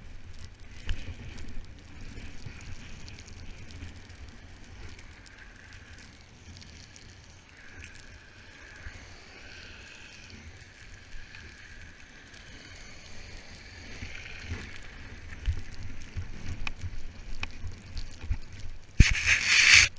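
Blizzard wind buffeting a GoPro's microphone in low gusts, with a faint wavering high tone through the middle. Near the end comes a loud rustling burst lasting about a second.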